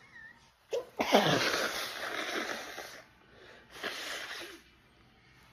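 A woman sneezing in an allergic-rhinitis sneezing fit: a quick in-breath, then a long, loud sneeze whose voice falls in pitch, and a second, shorter burst of breath about four seconds in.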